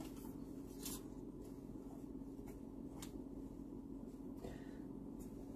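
Kitchen scissors snipping through soft biscuit dough: a few quiet snips, over a steady low hum.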